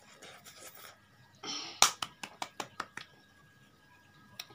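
A child is eating very spicy ramen. Soft chewing and slurping noises come first. About one and a half seconds in there is a short cough from the chilli heat, followed at once by a fast run of about seven sharp clicks lasting about a second.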